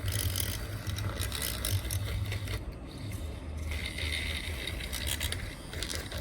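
Irregular scraping and clicking of small hand tools being worked on a phone, over a low steady hum.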